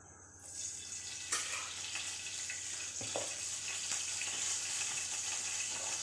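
Cooking fat heating in a frying pan over a gas burner, starting to sizzle with a steady hiss. There is a knock about a second in and a lighter knock about three seconds in.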